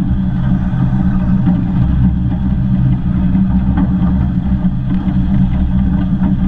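Steady low rumble of the 15-inch gauge steam locomotive 'Northern Rock' and its train running, heard close up at the cab side, with a few faint clicks.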